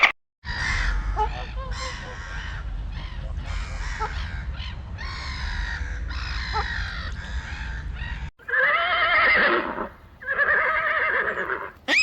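A horse neighing several times over a steady low wind rumble. Then two wavering goat bleats near the end.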